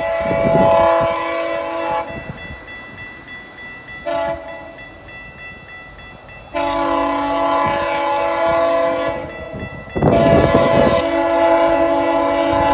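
GO Transit train's multi-chime air horn sounding for a level crossing: a long blast that ends about two seconds in, a short toot, then two long blasts. Low rumble of the approaching train between blasts.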